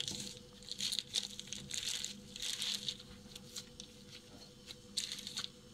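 Plastic bag and cling film crinkling and rustling in irregular soft spells as gloved hands squeeze and roll minced meat into a sausage shape.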